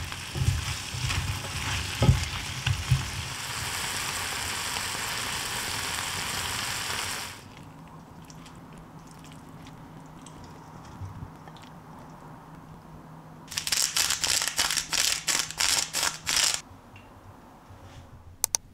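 Vegetables sizzling in a hot pan as they are stir-fried with chopsticks, with a few chopstick knocks on the pan in the first seconds; the sizzling stops about seven seconds in. Later comes a quick run of scraping taps lasting about three seconds as chopsticks push the vegetables out of the pan onto a plate, then two short clicks near the end.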